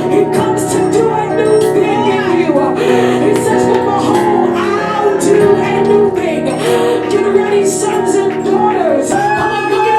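Church worship music: sustained keyboard chords with a voice singing or vocalizing over them, and occasional sharp percussive hits.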